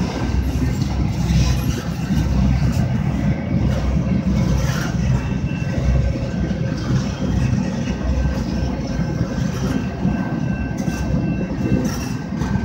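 Freight train of double-stack container well cars rolling past: a steady low rumble of wheels on rails. Faint, steady high ringing tones sit above it.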